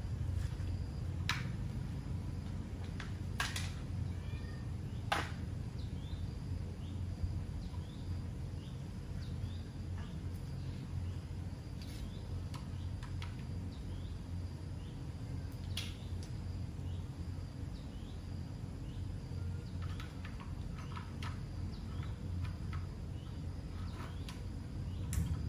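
Scattered light clicks and taps over a steady low hum, with a few faint short chirps.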